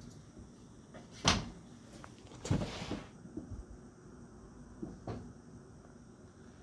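A few knocks and bumps: one sharp knock about a second in, the loudest, a longer rough bump a second later, and a fainter knock near the end.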